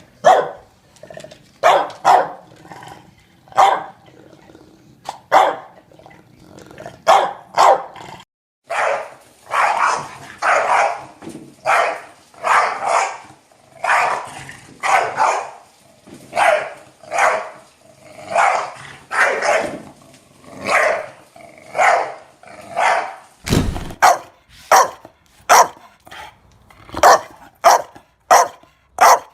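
English Bulldog barking over and over, about one or two barks a second, with a short break partway through; near the end an American Bully takes over with its own series of barks.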